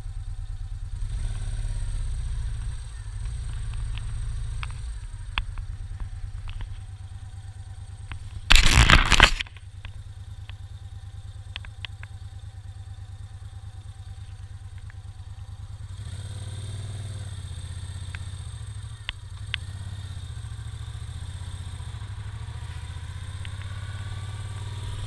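Small Moto Guzzi motorcycle engine running steadily while riding along, heard from on the bike. About a third of the way in, a loud burst of noise lasts about a second.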